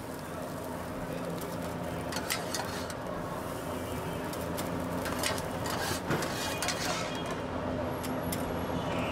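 Busy street-food stall ambience: a steady hum under background voices, with scattered sharp clicks and taps of utensils.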